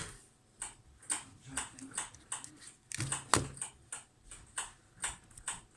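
Nokia 6103 phone's keypad buttons clicking as they are pressed in quick succession, about two or three irregular clicks a second. A few louder taps come about three seconds in.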